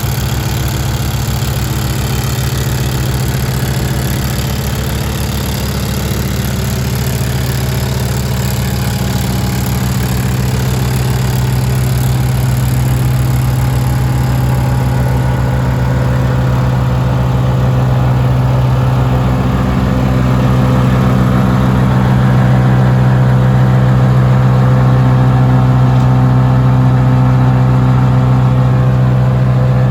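Bandit 90XP wood chipper's engine running steadily with an even hum, growing a little louder and shifting slightly in pitch about twenty seconds in.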